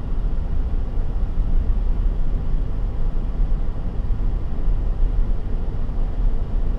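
Car driving along a paved road, heard from inside the car: a steady low rumble of engine and tyre noise.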